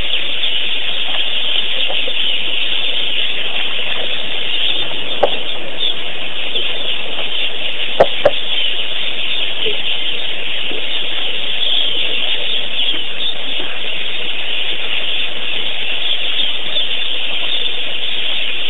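A steady, dense hiss, with a sharp click about five seconds in and two louder clicks in quick succession about eight seconds in.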